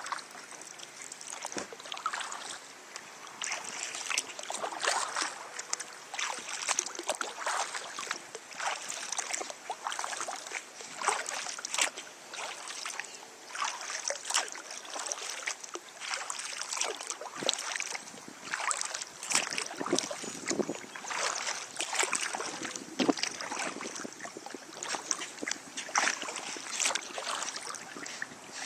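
Kayak paddle strokes: the blades dip into the river, with water splashing and dripping off them in an uneven run of short splashes.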